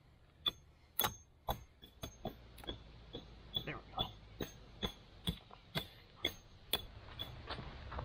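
Tent stakes being hammered into the ground: a steady run of sharp metallic knocks, about two a second, each with a brief ring.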